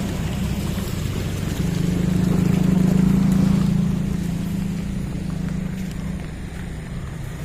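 Small motorcycle engine running while under way. It grows louder about two seconds in, then eases off again.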